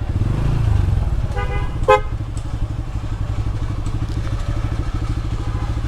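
Bajaj Pulsar N160's single-cylinder engine running steadily, heard from on the motorcycle. Two short horn toots sound about one and a half and two seconds in.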